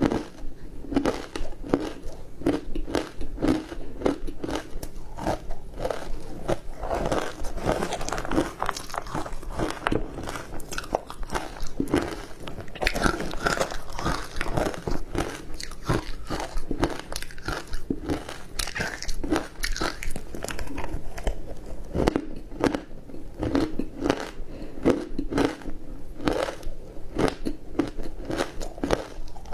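Ice dusted with matcha powder being bitten and chewed close to the microphone: a steady stream of hard crunches, several a second, without a break.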